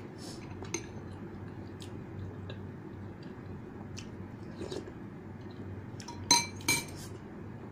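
Metal spoon and fork clinking and scraping against a bowl of noodle soup while eating, with small scattered clicks and two sharper ringing clinks a little after six seconds in.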